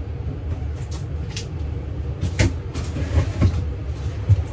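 A steady low hum runs under a handful of light knocks and rustles, as items are handled and moved about while rummaging.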